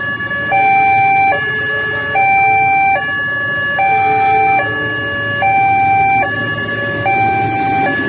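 Railway level-crossing warning alarm sounding a steady alternating high–low two-tone, each tone held about two-thirds of a second, signalling that a train is approaching and the barrier is down.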